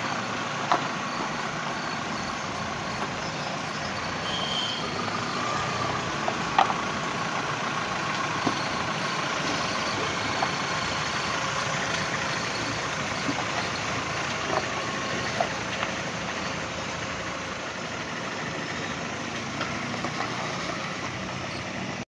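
Steady vehicle noise, with a short high beep about four and a half seconds in and a few light clicks scattered through.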